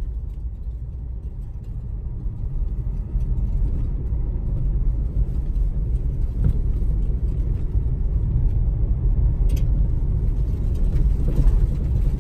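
Steady low road rumble from inside the cab of a Ford Ranger Raptor driving a corrugated dirt road: tyres and chassis drumming over the corrugations.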